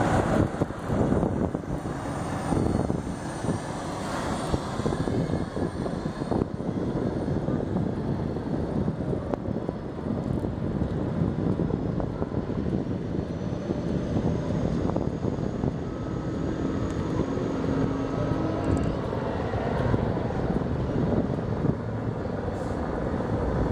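Wind rushing over the microphone of a moving bicycle, with steady road rumble. A faint steady hum comes in for a couple of seconds about two-thirds of the way through.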